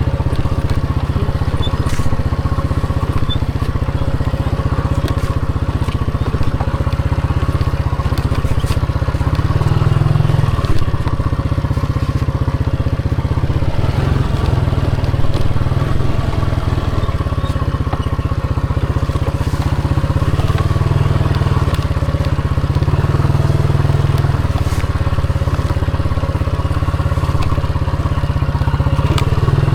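Motorcycle running steadily while being ridden, with a heavy low rumble throughout that swells slightly about ten seconds in.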